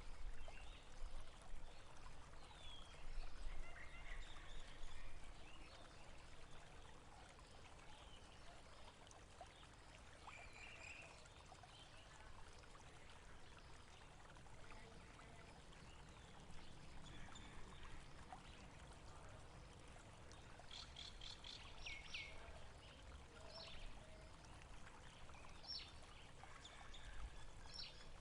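Faint running water, like a small stream trickling steadily, with birds calling now and then: short high chirps, bunched together about three-quarters of the way through.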